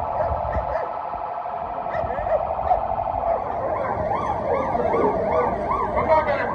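Several police vehicle sirens sounding together over the low rumble of passing trucks. From about halfway through, a fast yelp that rises and falls about three times a second grows loud.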